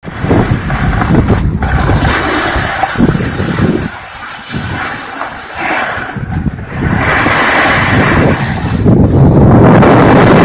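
Loud rushing noise of riding a snowboard downhill: wind buffeting the microphone over the hiss and scrape of the board on snow, easing briefly around four and six and a half seconds in.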